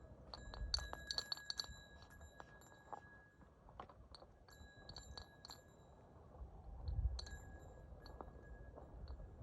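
Faint light clinking with a short ringing tone after each click, in quick clusters about a second in and again around five seconds in, with a couple of dull low thumps.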